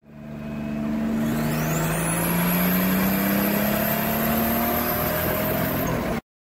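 Car engine running under a slow, steady rise in pitch, with a high whine that climbs steeply over the first two seconds and then holds. It swells in at the start and cuts off abruptly near the end.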